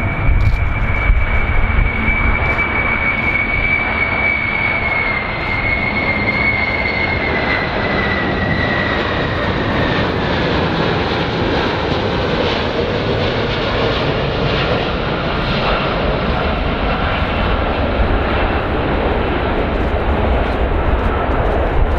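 Boeing 747 (VC-25A) jet engines on landing approach: a steady rushing roar with a high whine that slowly drops in pitch and fades out about halfway through.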